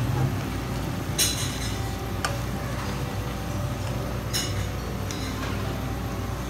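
Bell peppers and garlic sizzling in oil in a nonstick wok, stirred with a plastic slotted spatula that scrapes and clinks against the pan in a few short strokes, about one, two and four seconds in. A low steady hum runs underneath.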